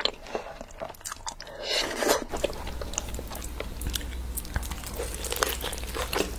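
Close-miked mukbang eating sounds: a person chewing and biting into curried meat with flatbread eaten by hand, with many small wet clicks and smacks. About two seconds in, the recording changes and a low steady hum runs underneath the chewing.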